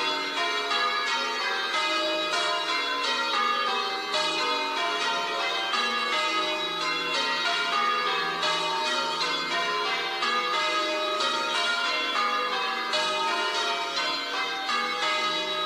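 Church bells ringing in changes, many bells struck in quick succession with their tones overlapping, at a steady level.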